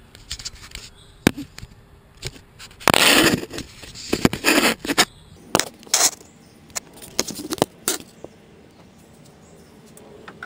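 Metal hose clamps and rubber vacuum hoses being handled and fitted in an engine bay: a string of small clicks and scrapes, with a louder scraping rustle about three seconds in and another about a second later. The clicks die away about eight seconds in.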